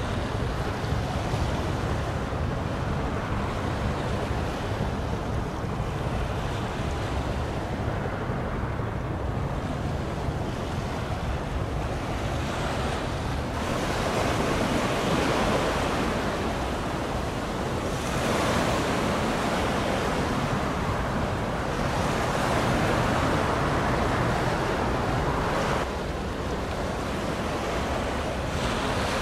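Sea water washing against the shore, with wind on the microphone. The wash grows louder about halfway through and eases again near the end.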